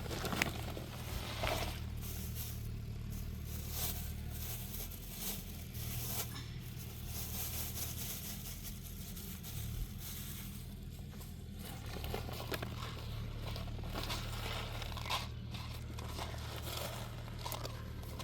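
Irregular rustling and scraping with small scattered clicks, over a steady low rumble.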